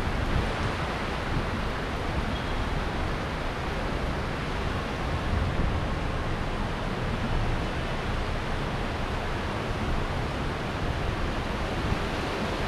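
Steady rushing noise of a rainstorm over a flooded street: an even hiss with an uneven rumble at the low end.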